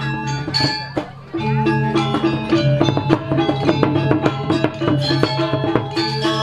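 Balinese gamelan playing bebarongan (barong) accompaniment: bronze metallophones ringing in fast, dense strikes over low sustained tones, with drum strokes from the kendang. The ensemble briefly thins about a second in, then comes back in full.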